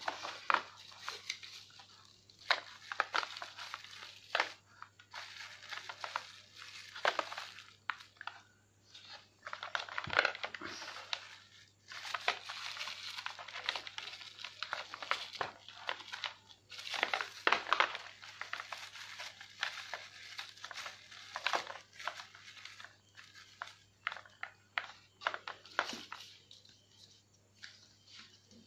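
Thin clear plastic blister packaging crinkling and crackling in irregular bursts as hands work the USB capture adapter and its RCA cables out of the tray.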